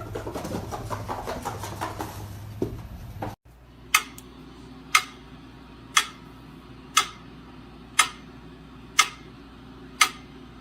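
A clock ticking once a second, with sharp, evenly spaced ticks. It follows about three seconds of indistinct noise with a low hum that cuts off suddenly.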